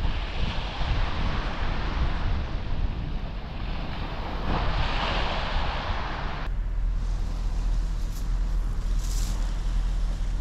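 Small waves breaking and washing up a shingle beach, swelling twice, with wind buffeting the microphone. About six seconds in the sound cuts abruptly to a steadier low wind rumble.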